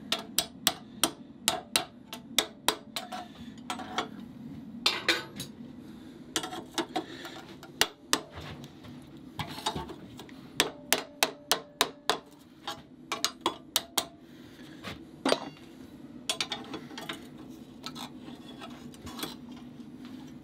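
Ball-peen hammer striking a forged steel trace hook held on a bending jig clamped in a leg vise: quick runs of sharp metallic blows, some ringing briefly, that thin out after about fifteen seconds, over a steady low hum.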